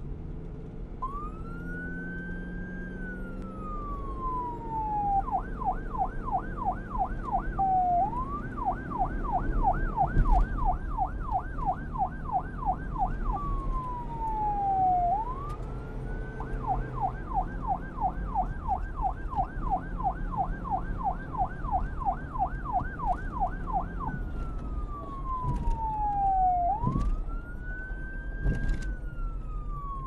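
Police siren alternating between its wail and yelp: slow rising and falling wail sweeps give way to long runs of rapid yelp sweeps, about four a second, then back again. A low rumble runs underneath.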